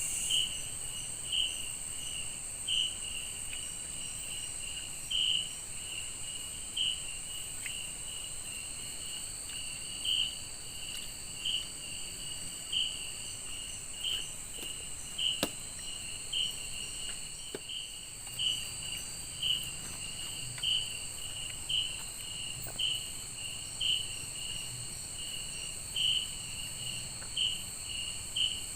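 Night insect chorus in tropical forest: a steady high-pitched drone with a shorter, lower chirp repeating about once a second.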